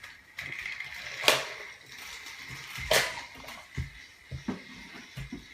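Plastic toy train set pieces clicking and knocking, with two sharp clacks about a second in and about three seconds in, and lighter knocks after.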